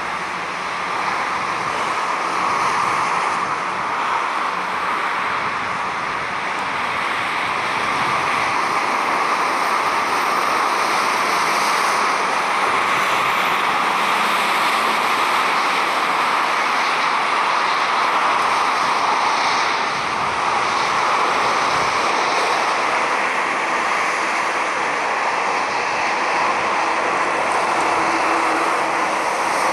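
Jet engines of a Boeing 737 airliner as it rolls out along the runway just after touchdown: a loud, steady rushing noise that swells about a second in and again around eight seconds, then holds.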